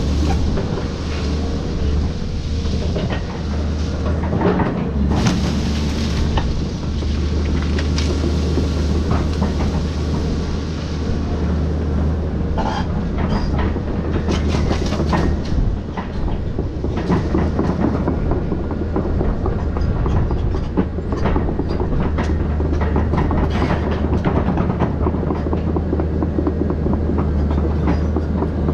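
Volvo excavator's diesel engine running steadily under load, with repeated clanks, knocks and cracks as it rakes up uprooted citrus trees.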